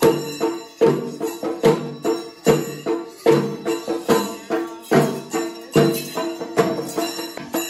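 Kerala temple percussion: a drum beaten with a curved stick together with ringing metal strikes, in a steady rhythm of a strong stroke a little under every second with lighter strokes between.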